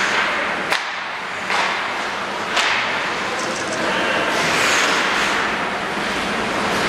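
Ice skates scraping and carving on rink ice, with three sharp clacks of hockey stick and puck in the first few seconds.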